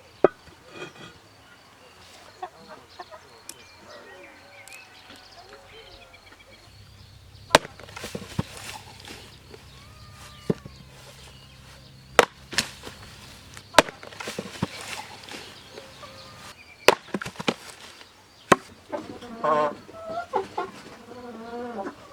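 Chopping: single sharp strikes a few seconds apart, with faint chirping calls between them.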